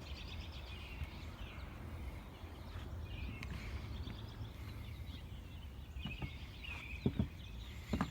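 Outdoor ambience of small birds chirping and twittering over a steady low rumble, with a couple of brief low knocks near the end.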